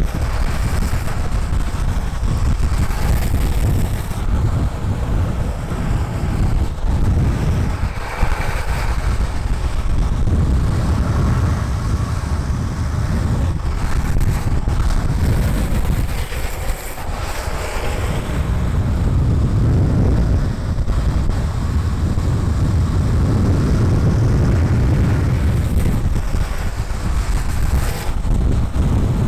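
Heavy wind rushing over the microphone on top of the steady rumble of downhill skateboard urethane wheels rolling on smooth asphalt. A brighter hiss swells up twice, about a quarter of the way in and again past the middle.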